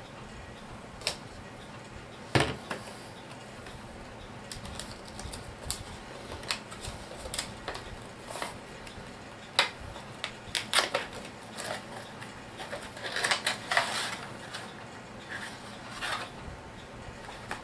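HeroClix booster pack being opened and its contents handled: scattered clicks and taps with plastic rustling, a sharp knock about two and a half seconds in and a busier patch of crinkling near the end.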